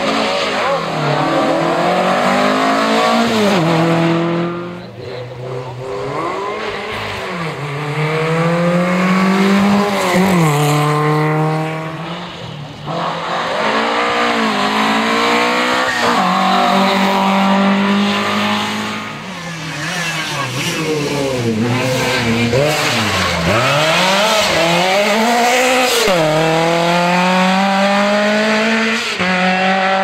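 Historic rally cars running flat out past the spectators, one after another, their engines revving hard through the gears. The pitch climbs and falls back sharply at each gear change, again and again.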